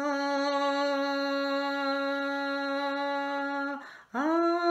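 A woman's voice singing a long held note without vibrato, then a short break, then a higher note that slides up into place and is held: a choir part being sung to show a step up in pitch.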